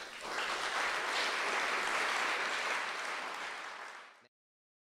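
Audience applauding, a dense even clapping that cuts off abruptly after about four seconds.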